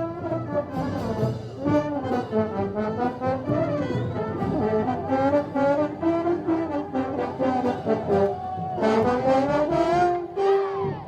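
Brass band playing Moros y Cristianos festival music, with trombones and trumpets carrying a moving melody; a phrase ends near the end and a new held note begins.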